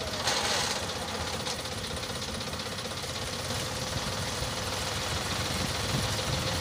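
Tractor diesel engine running steadily, with a short burst of noise about half a second in.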